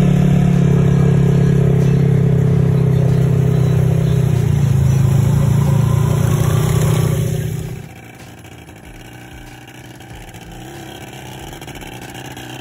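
ATV engine running loud and steady close by under throttle, then dropping sharply about two-thirds of the way through to a much quieter background with only faint engine noise.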